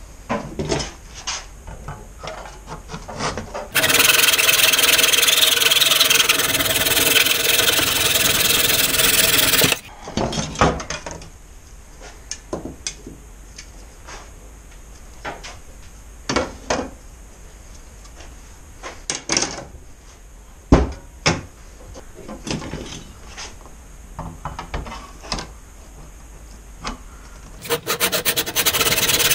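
Hand saw cutting screen-frame stock in a miter box: a long spell of steady sawing, then scattered knocks and clicks as the pieces are handled, and sawing starts again near the end.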